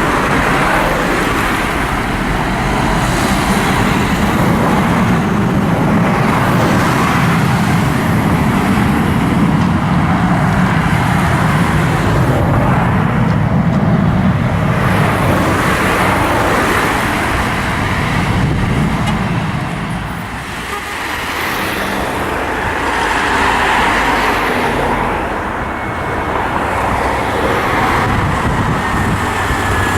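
Continuous loud engine noise with a strong low rumble that swells and fades, dipping briefly about two-thirds of the way through.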